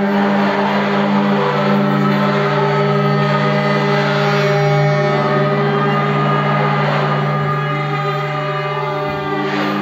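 Improvising experimental orchestra holding a dense, steady drone of many sustained pitches, with a noisy shimmering texture over it and a brief swell near the end.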